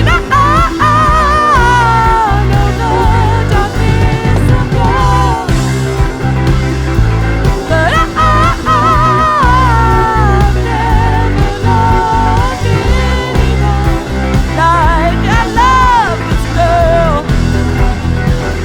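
Rock song with bass guitar and a steady beat, under a high lead melody that wavers with wide vibrato and slides between notes.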